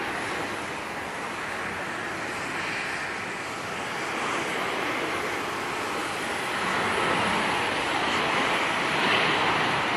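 Jet airliner engines heard across the airfield: a broad rush of noise that grows louder over the last few seconds.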